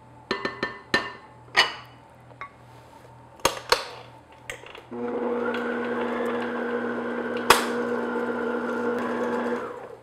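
A few sharp clinks and knocks of utensils against a glass mixing bowl, then about five seconds in a stand mixer starts on low speed and runs with a steady hum as it beats liquid into cake batter. A single sharp click sounds partway through, and the mixer stops just before the end.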